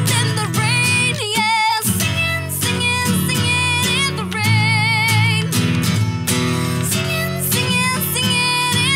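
A woman singing long held notes with a wide vibrato, live, over a strummed acoustic guitar.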